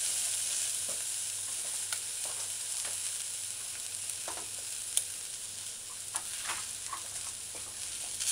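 Saltfish, okra and onions frying in a little oil in a stainless steel saucepan over low heat: a quiet, steady sizzle with a few sharp ticks scattered through it.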